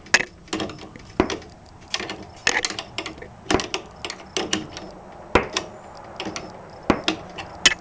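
A wrench tightening the set nut on a garage door opener's chain-tension bolt, making irregular sharp metal clicks and clinks.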